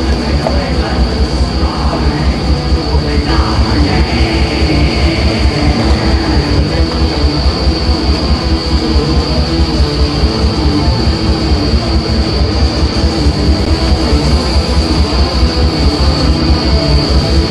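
Black metal music: distorted electric guitar over fast, even drumming, about six beats a second, played loud.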